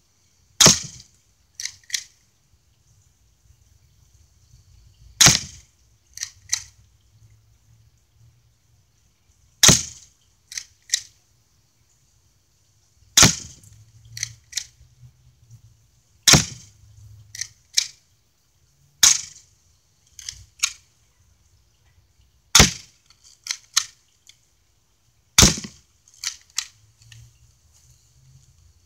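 Airsoft gun firing pellets at an old digital camera: about eight sharp cracks, some three seconds apart. Each crack is followed by two or three lighter clicks.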